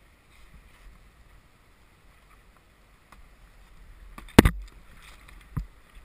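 Faint water around a kayak, then a sharp, loud knock about four seconds in and a smaller one about a second later as the kayak and its camera bump against a mossy rock bank.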